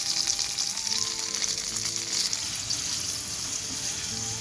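Calabrian pork sausages sizzling steadily in hot olive oil in a metal frying pan as they begin to brown.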